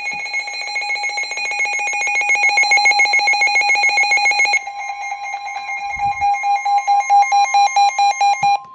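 Weather radio alert: a receiver's electronic alarm beeping in rapid pulses, slowing to about four beeps a second about halfway through, when a steady higher tone, typical of the NOAA 1050 Hz warning alarm tone, joins it. Both cut off abruptly just before the warning message begins.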